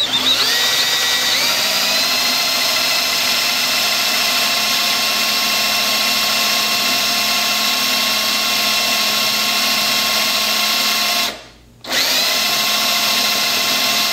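Power drill spinning a Forstner bit, boring a shallow counterbore into a wooden cabinet face frame: a steady motor whine that rises in pitch as the drill spins up. It stops briefly about eleven seconds in, then starts again.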